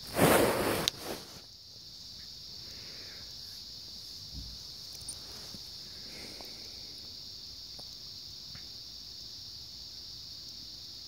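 A brief loud rustle of the recording phone being handled and covered in the first second, then a steady high-pitched hiss with a couple of faint knocks.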